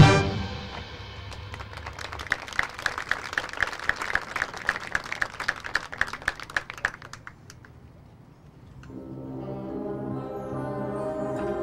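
Marching band playing: a loud full-band chord dies away, then an even run of dry percussion taps, about four a second, for several seconds. After a short lull the brass come in with held low chords.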